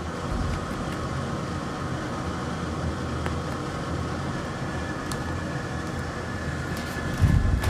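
Steady mechanical background hum with faint steady whine tones, like a running fan, with a couple of faint ticks and a brief louder low bump near the end.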